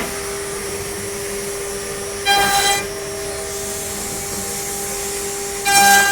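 Steady machine hum with a constant tone, broken twice by short whistling blasts of about half a second each, roughly three seconds apart.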